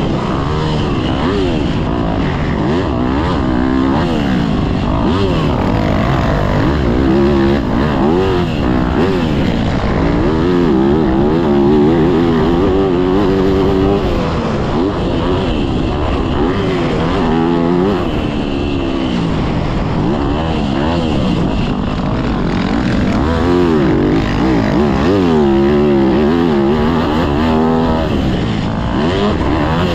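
Motocross dirt bike engine heard from an onboard camera, revving hard and rising and falling in pitch again and again as the rider opens the throttle and rolls off through the track's sections.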